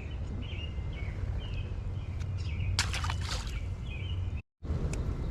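Birds chirping in short repeated calls over a steady low rumble of outdoor noise, with a brief rustle about three seconds in. The sound drops out for an instant near the end.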